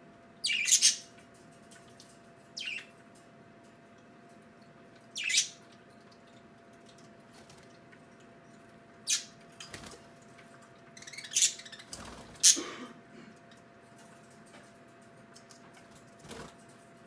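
Pet budgerigars (parakeets) giving short chirping calls, one or two at a time, scattered a few seconds apart.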